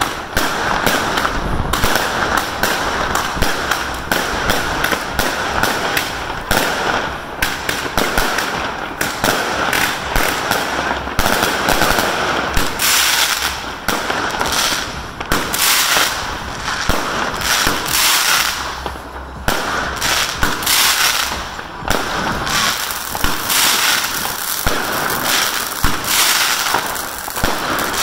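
Fireworks going off in a dense, continuous barrage: rapid bangs and crackling, many per second, over a steady hiss.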